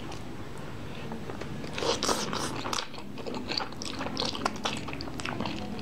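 A person eating sauce-coated jjajang instant noodles close to the microphone: a short noisy slurp about two seconds in, then chewing with many quick wet clicks.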